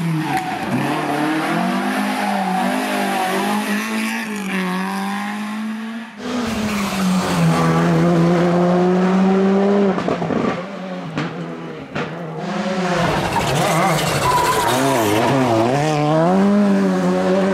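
Rally car engines revving hard at full attack on a tarmac stage, their pitch climbing and dropping with gear changes and corners. Three separate car passes are cut together, with short breaks about six and twelve seconds in.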